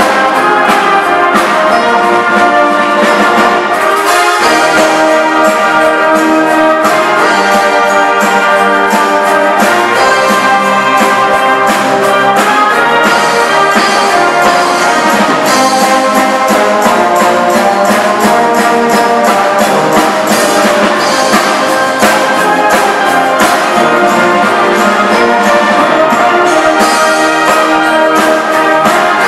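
A large brass band with sousaphones playing a piece, backed by percussion strikes.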